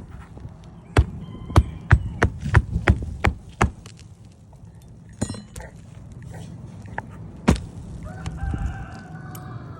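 A quick run of about eight sharp knocks, then two single knocks, from hand-tool work on the roof shingles. Near the end a rooster crows once, one long call of about a second and a half.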